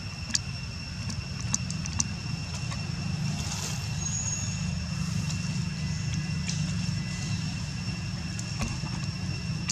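Outdoor background: a steady low rumble with a faint, steady high-pitched whine over it and a few light, sharp clicks.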